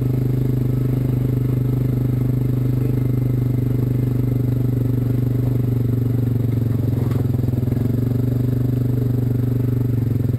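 ATV engine running at a steady, unchanging speed, heard close up.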